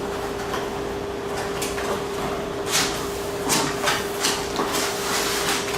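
Cardboard display panels being folded up and handled: a series of short scrapes and rustles as flaps bend and tabs are pushed into slots, over a steady faint hum.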